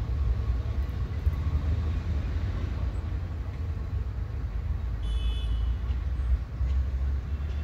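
Steady low rumble of an ALCo diesel locomotive and its train running past. A brief high chirp comes about five seconds in.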